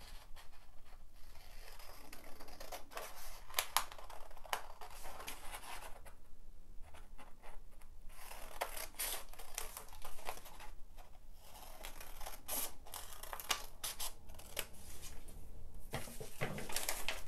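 Paper scissors cutting a printed pattern out of a sheet of printer paper: a long series of short crisp snips with a few brief pauses while the paper is turned along the curve.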